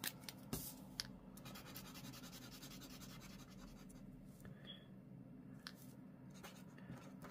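Paint marker scribbling a colour swatch on card: a faint, steady scratching with fast back-and-forth strokes, preceded by a few light clicks as the marker is handled in the first second.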